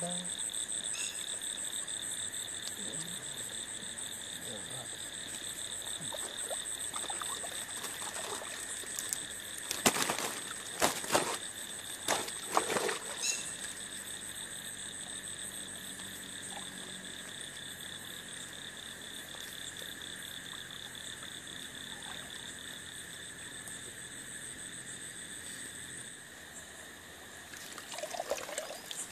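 Steady night chorus of frogs with high, pulsing trilling calls. A few sharp knocks or splashes come about ten to thirteen seconds in, and water sloshes near the end as a hand works in the shallows.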